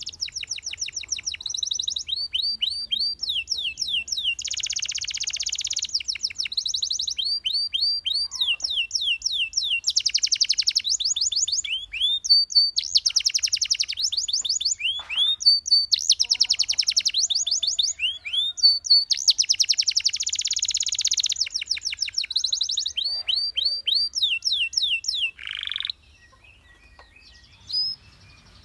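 Domestic canary song: fast rolling trills of rapidly repeated notes alternating with runs of falling whistled notes, breaking off about 26 seconds in, followed by one short chirp near the end.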